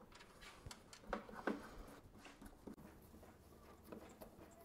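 Faint scattered clicks and small knocks of a hand screwdriver turning Phillips screws into the windshield's well nuts on a motorcycle fairing.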